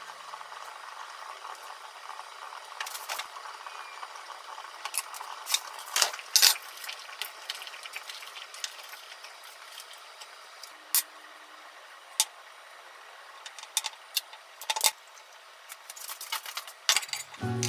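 Kitchen handling sounds: scattered light clicks and clacks of cookware and dishes being handled, the loudest pair about six seconds in, over a faint steady hiss.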